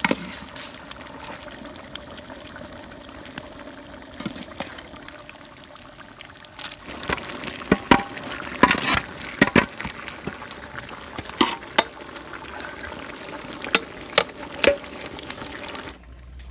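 Boiled tapioca cubes being ladled and tipped into a large aluminium pot of beef curry bubbling over a fire, with a steady hiss and, from about seven seconds in, repeated sharp clinks and knocks of the metal ladle and vessel against the pot.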